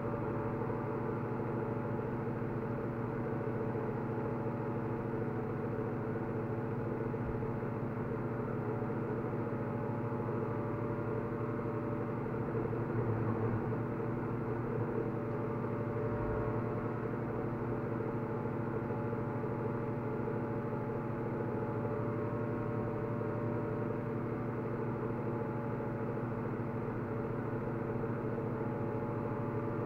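Steady mechanical drone holding one pitch throughout.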